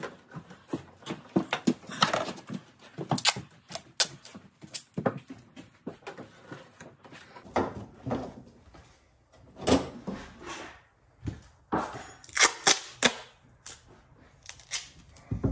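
Sheet-metal floor vent boot being handled and squared up in its floor opening: irregular metal taps, clicks and knocks, with tape being pulled and torn from a roll near the end.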